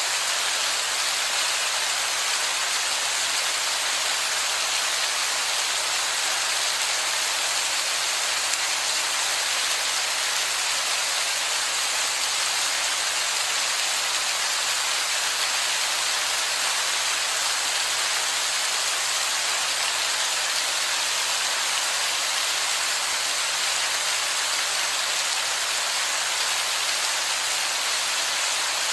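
Heavy rain falling on rock, a steady, even hiss with no single drops or pauses standing out.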